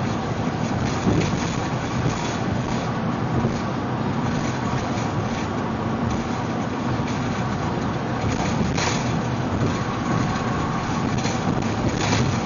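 Steady road noise of a car driving at highway speed, heard from inside the cabin: tyre and engine noise. Two brief knocks, about two-thirds of the way through and near the end.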